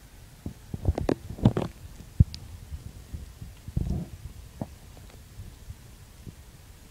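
Handling noise: a cluster of knocks and low thumps in the first two seconds and a short rumble about four seconds in, over a low hiss.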